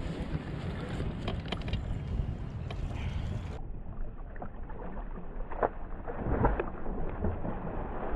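Wind buffeting the microphone over water sloshing and lapping against a kayak's hull, with scattered knocks and splashes. The sound turns duller about three and a half seconds in.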